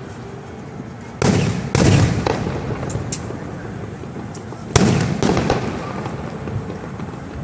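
Aerial fireworks shells bursting: two clusters of loud booms, one about a second in and one past the middle. Each is followed by a rolling rumble and crackle that fades.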